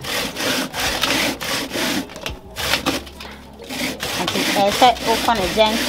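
Cassava being grated by hand on a punched sheet-metal grater: quick rasping back-and-forth strokes, about three a second, with a short lull near the middle.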